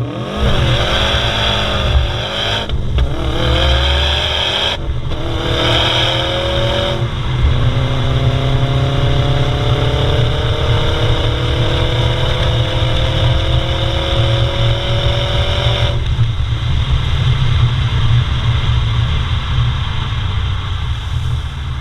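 Subaru Impreza WRX STI's turbocharged flat-four engine and exhaust accelerating hard through the gears: the note rises in pitch, breaks at shifts about 3 and 5 seconds in, then climbs slowly in a higher gear until the throttle is lifted about 16 seconds in and the engine runs on more quietly.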